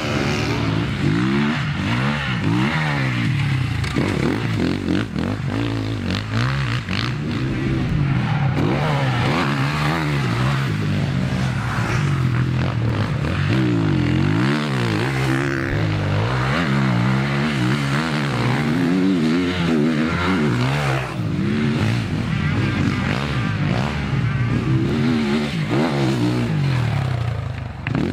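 Motocross dirt bike engines revving hard and dropping off again and again, the pitch rising and falling with each burst of throttle.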